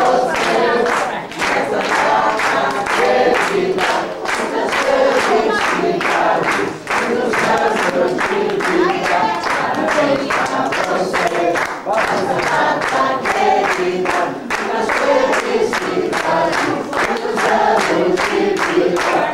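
A crowd of family members singing the birthday song together, clapping steadily in time.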